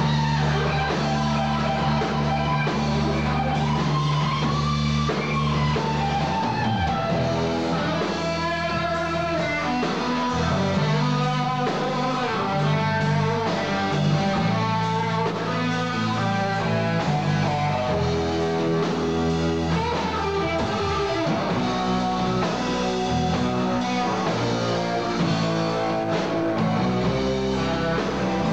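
Live rock trio playing an instrumental passage: electric guitar leading with bent, gliding notes over bass guitar and drum kit.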